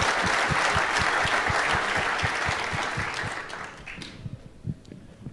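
Audience applauding: a dense round of clapping that thins out and dies away about four seconds in, leaving a few scattered claps.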